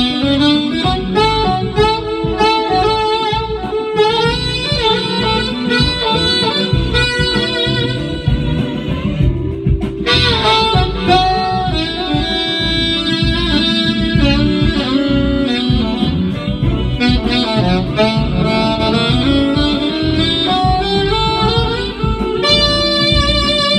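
Alto saxophone playing a jazzy solo melody over a backing track with a steady bass and drum pulse. The melody breaks off briefly just before ten seconds in, then picks up again.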